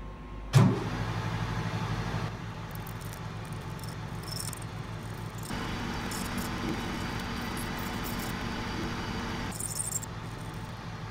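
Metal lathe switched on about half a second in with a sudden loud start, then running with a steady motor-and-gearbox hum. Scratchy cutting noise comes and goes as the tool works the spinning nut blank in the chuck.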